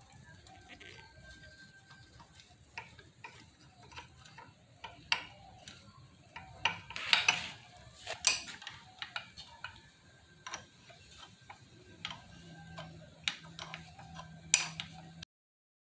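Irregular light metallic clicks and taps of a bolt and an Allen key against a motorcycle's rear brake master cylinder and its footpeg mounting bracket as the cylinder is fitted, with a few sharper knocks about halfway through and near the end. The sound cuts off abruptly just before the end.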